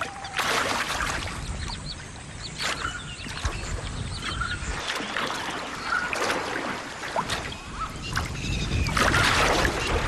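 Several bursts of water splashing, the loudest near the end, as mugger crocodiles lunge and snap at fish in shallow water. Short bird calls sound in between.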